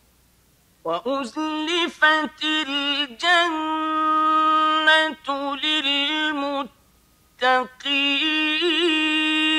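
A male reciter chanting Quran verses in the melodic tajwid style, holding long, ornamented notes. The chanting begins about a second in and stops for a short pause past the middle.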